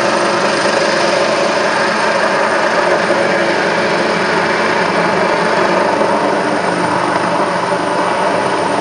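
Military helicopter landing close by out of sight, its turbine engines and rotor running loud and steady, with a thin high whine over the rush of the rotor.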